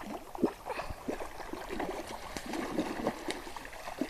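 Hooked brown trout thrashing at the water's surface while being played on the line, making a run of irregular splashes and gurgles.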